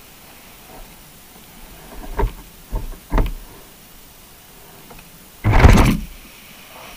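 A few dull knocks about two to three seconds in, then a louder, longer thump about five and a half seconds in, carried through the camera housing of a rig resting on the seabed as it settles in the sediment.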